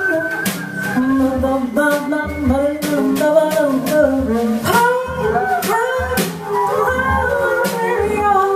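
Live jazz quartet playing a slow swing ballad: upright bass plucking steady notes about twice a second under piano, with the drummer's cymbals marking the beat.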